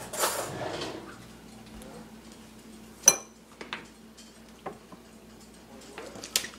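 Cutlery on a dinner plate: a short scrape, then one sharp ringing metal clink about three seconds in, followed by a few lighter taps.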